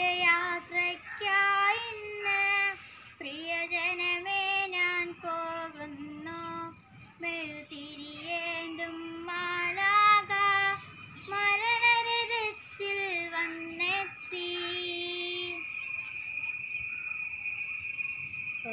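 A young girl singing a Malayalam Christian funeral song alone, in slow held phrases with short breaths between them. The singing stops about three-quarters of the way through, leaving a steady high whine.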